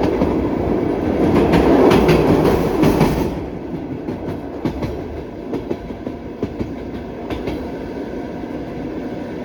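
Wheels of a passenger train's carriages clattering over the rail joints while the train runs, with steady rushing running noise. The rush is loudest for the first three seconds, then drops suddenly, and the wheel clicks carry on.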